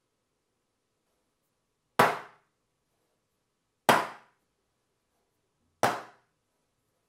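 A 6-inch round metal cake tin with a removable bottom, full of chocolate batter, tapped down hard on a wooden tabletop three times, about two seconds apart, each knock ringing briefly. This is done to knock air bubbles out of the batter before baking.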